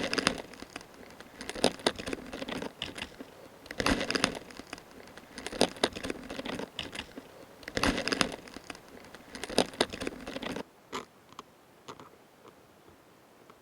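Japanese giant mantis chewing insect prey, its mouthparts making crisp crunching clicks in bouts about every two seconds; the chewing stops about ten and a half seconds in, leaving a few faint clicks.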